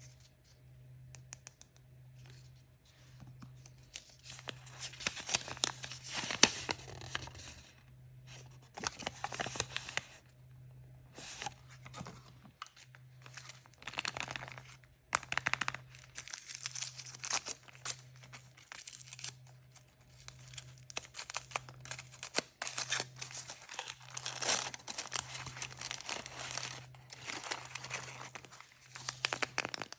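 Plastic or foil wrapping of surprise toy packaging being torn open and crinkled by hand, in repeated bursts with short pauses between.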